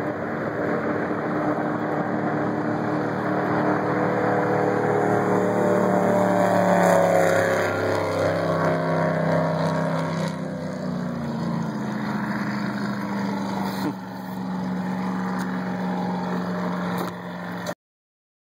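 Power boat's engine passing at speed on a fly-by: the engine note grows louder to a peak about seven seconds in, its pitch drops as the boat goes by, and it runs on more quietly before the sound cuts off suddenly near the end.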